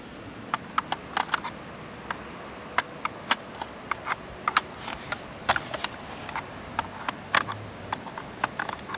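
Irregular light clicks and taps of hard plastic being handled: the brush roller and housing parts of a Dyson DC24 vacuum brush head being fiddled with and fitted together.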